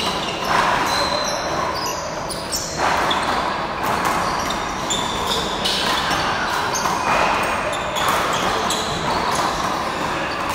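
Small rubber handball smacking the front wall and floor again and again during a rally, at irregular intervals, with players' shoes scuffing on the court.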